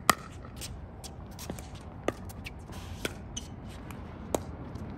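Pickleball rally: sharp pops of paddles striking the hard plastic ball, the loudest just as it begins and others about two, three and four seconds in, with fainter taps between.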